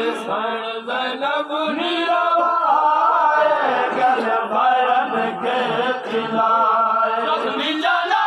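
A group of men chanting a noha, a Shia mourning lament, their voices joined in a continuous sung chant.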